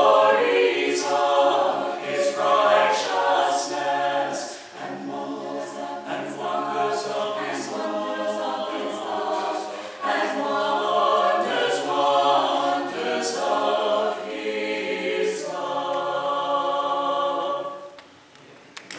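Small mixed choir singing in harmony, phrase after phrase, ending on a held final chord that stops about a second before the end.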